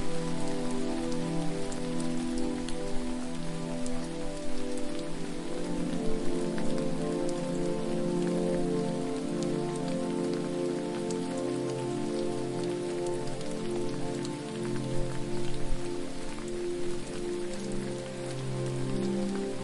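Steady hiss of falling water with fine splashing patter, over low sustained tones that shift every second or so.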